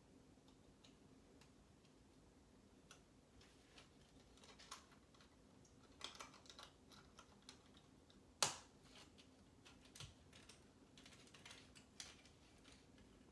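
Lego pieces being handled and pressed together: scattered light plastic clicks, with one sharper snap about eight seconds in.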